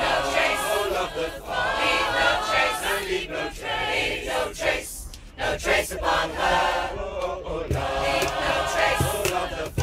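Choir singing a chant in harmony, with a brief break between phrases about five seconds in.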